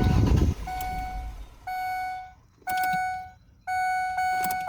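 Car warning chime beeping about once a second, each beep a steady tone with overtones. A low rumble at the very start stops within half a second.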